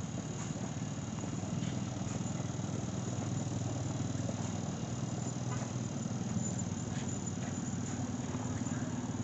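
An engine running steadily with a low, even putter, with insects chirping high and faint in the background.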